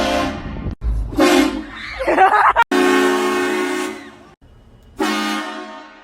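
Repeated loud train horn blasts, a chord of several tones: one cuts off just under a second in, a short blast follows, then a longer one about three seconds in and another about five seconds in that fades out. Between the blasts, a person's voice cries out briefly.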